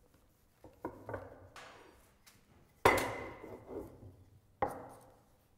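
Wooden rolling pin knocking against steel guide bars and a wooden worktable while dough is rolled out between them: four sharp knocks, the loudest about three seconds in with a short metallic ring.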